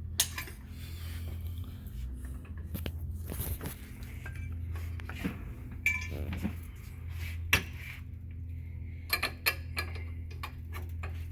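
Metal hardware and hand tools clinking and knocking as the Comanche's landing-gear bungee cord and its bolt are handled, with a quick run of clicks near the end, over a steady low hum.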